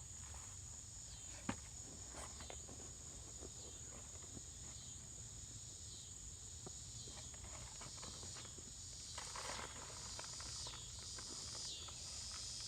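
A steady, high-pitched insect chorus, with a pulsing insect call joining in during the last few seconds. Under it, faint rustling and small clicks of hands sifting through potting soil in a bucket.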